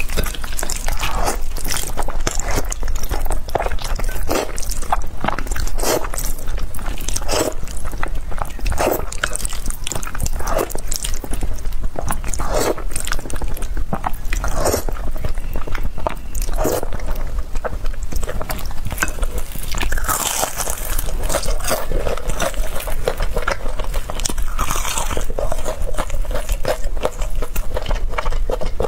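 Close-miked eating: chewing and slurping spicy instant noodles, with crunchy bites of breaded fried chicken. A short mouth sound comes every second or two.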